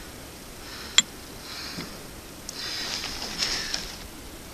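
A man breathing hard through his nose, with repeated sniffing breaths, out of breath from friction fire-making with a spindle. There is a single sharp click about a second in.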